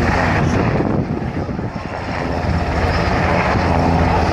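Coast guard search-and-rescue helicopter hovering low over the sea, its rotor and engines running steadily, mixed with the rush of wind and surf. The sound dips briefly about a second in, then comes back to full strength.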